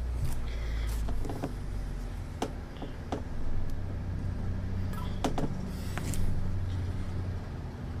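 A steady low rumble with a number of sharp clicks and knocks scattered through it; no music.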